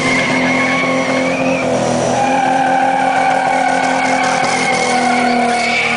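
An SUV drifting on tarmac, its engine held at high revs while the tyres squeal in long, steady tones.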